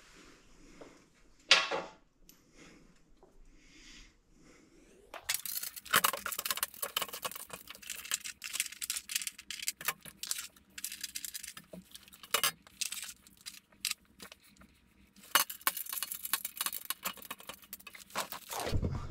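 Metal parts clinking and rattling as an aluminium skid plate is held up under the car and bolts, washers and spacers are fitted by hand. There is one sharp knock about a second and a half in, then near-continuous irregular clatter from about five seconds in.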